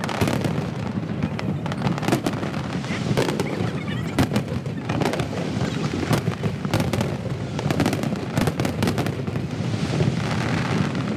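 Aerial fireworks shells bursting in rapid, overlapping volleys with crackling, a continuous barrage of sharp bangs with no pause. The audio is sped up to double speed, so the bursts come faster and higher than in life.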